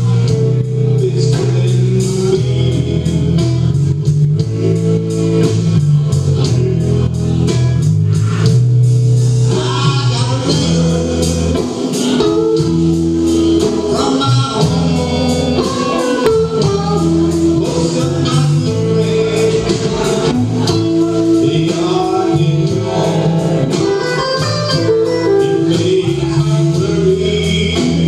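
A live rock band playing a song: guitar, drums and keyboards with a singer, in a steady driving beat.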